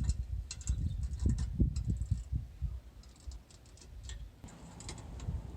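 Small metal clicks and ticks of bolts and washers being handled and fitted by hand to a roof-mounted bracket, over low, irregular handling bumps that are heavier in the first couple of seconds.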